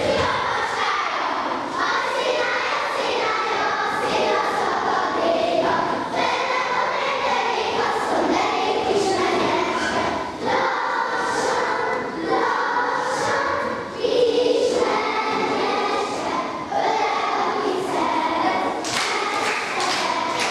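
A group of children singing a Hungarian folk song together as they dance, with thuds of their feet on the floor.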